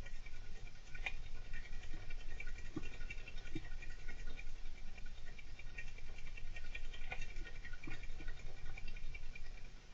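Golden hamster scratching and scrabbling, a dense continuous run of small scratches with occasional sharper clicks.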